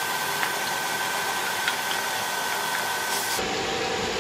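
Grated raw papaya frying in ghee in a pan on an induction cooktop: a steady hiss with a faint high whine. The hiss loses its top end about three seconds in.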